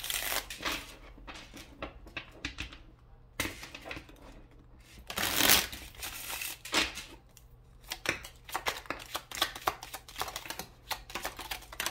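A deck of oracle cards being shuffled by hand: irregular flicking and clicking of card edges with several loud swishes. Near the end, cards spring out of the deck in a quick run of clicks and slaps as they land on the marble tabletop.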